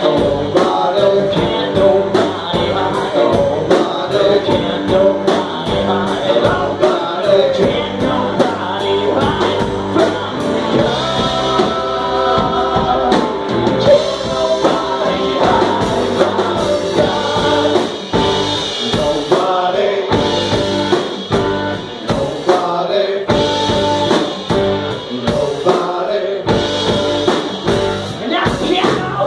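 A live rock band playing electric guitars, keyboard and drum kit to a steady beat, with a man singing lead into a microphone.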